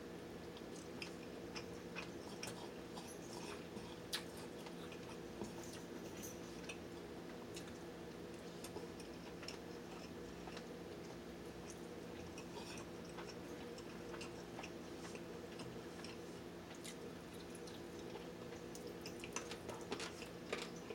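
Quiet chewing of chicken wings and rice, with scattered small wet mouth clicks, one a little louder about four seconds in, over a steady low room hum.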